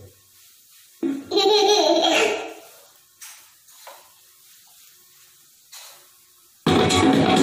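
A keyboard rhythm loop from a Roland XPS-10 stops, and in the pause there is a brief laugh-like voice sound about a second in, then a few faint clicks. Near the end the next loop starts loudly.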